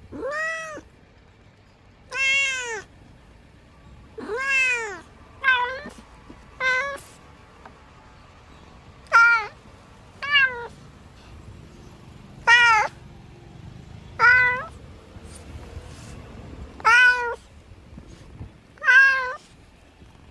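A domestic cat meowing over and over, about eleven meows one to two and a half seconds apart, each rising and then falling in pitch.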